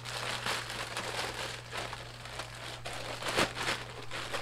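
Plastic bag rustling and crinkling as it is handled and opened to get the inner tube out, with a louder crackle about three and a half seconds in.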